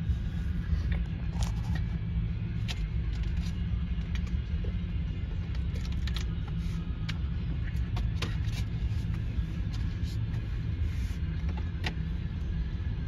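Freight train of covered hopper cars rolling past: a steady low rumble with scattered sharp metallic clicks and clanks.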